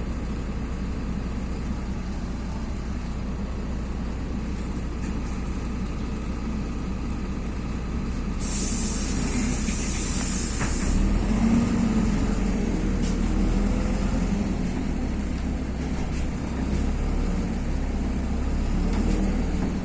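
LiAZ-5292.21 city bus's diesel engine running at idle. About eight seconds in there is a loud hiss of compressed air from the bus's pneumatic system, lasting about two seconds. Then the engine grows louder and deeper as the bus moves off.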